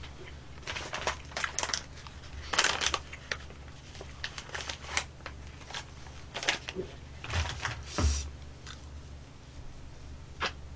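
A plastic tissue packet crinkling and rustling in short, scattered bursts as it is handled, opened and a tissue pulled out, with a few small clicks.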